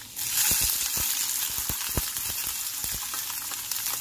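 Chopped onion going into hot oil with mustard seeds, cumin and garlic in a kadai: the sizzling jumps up sharply just after the start and keeps going, with scattered sharp clicks through it.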